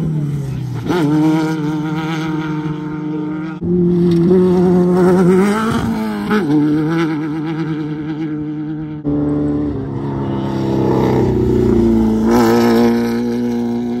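Off-road race car engines running hard as the cars pass, their pitch rising and falling. The sound changes abruptly twice, about a quarter and two thirds of the way through.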